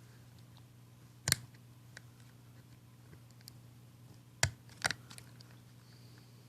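Sharp plastic clicks and light taps of small Hyundai Tiburon door handle parts being handled and a white plastic piece slid into the handle: a loud click about a second in and two more a little past the middle. A steady low hum runs underneath.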